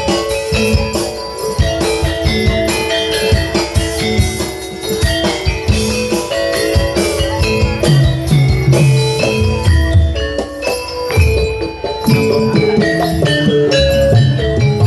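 Live Javanese jaranan gamelan music: drums and struck metal gongs and metallophones playing a busy, steady rhythm.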